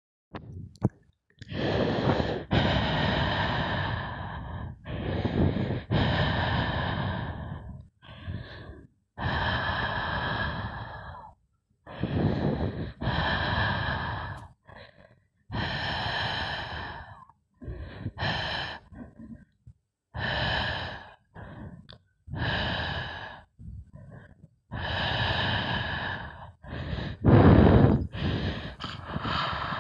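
Heavy, laboured breathing of a deer being bitten by a Komodo dragon: about a dozen long breaths, each lasting one to three seconds, with short gaps between them.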